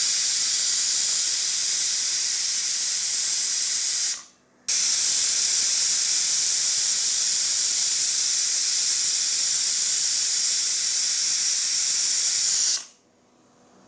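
Pressure cooker whistling twice: steam hissing out steadily past the weight valve for about four seconds, breaking off abruptly, then again for about eight seconds. These are the two whistles that signal the rice is done and the stove can be turned off.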